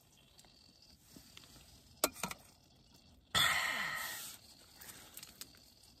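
Plastic food bag rustling in one loud crinkle about three seconds in, fading within a second, with a couple of small clicks just before it.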